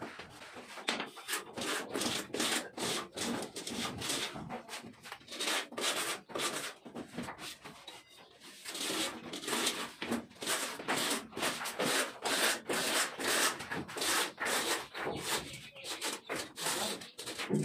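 Hand plastering tool scraping and rubbing across wet sand-cement plaster on a concrete beam, in quick repeated strokes of about two or three a second. There is a short lull about seven to eight seconds in.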